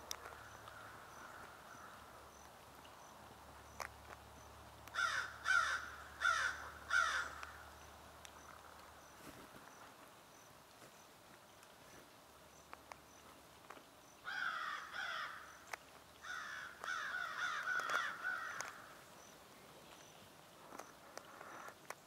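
A crow cawing: four caws a little over half a second apart about five seconds in, then two more runs of caws about fourteen to nineteen seconds in. A faint, regular high ticking runs underneath.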